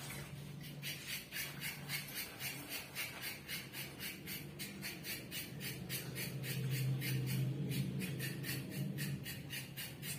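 Quick, even scraping strokes by hand at a kitchen sink, about three a second, over a low steady hum.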